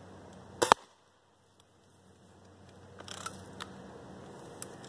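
A Daisy Red Ryder BB gun fires and a balloon bursts: two sharp cracks in quick succession a little over half a second in, the second louder. Around three seconds in come a few faint clicks and a short rustle.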